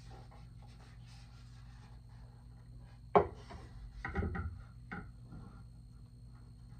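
Handling noise of a mask being fitted onto its display stand: soft rubbing at first, then a sharp knock about three seconds in, followed by a short run of lighter knocks and scrapes.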